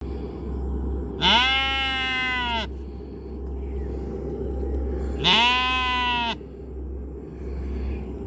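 A sheep bleating twice, each baa about a second long, rising at the start and then held level, over a steady low rumble.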